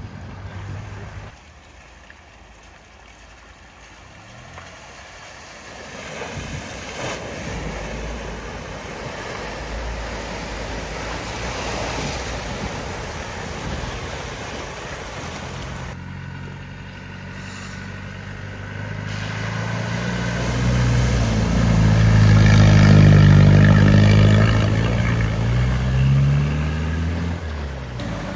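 A vehicle driving through a flooded ford: engine running and water rushing around it, growing louder as it comes through, loudest about two-thirds of the way in, with the engine pitch falling as it passes and moves away.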